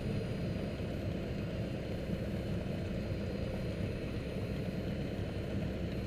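Piper Archer II's four-cylinder Lycoming O-360 engine and propeller running at low taxi power, heard from inside the cabin as a steady low rumble.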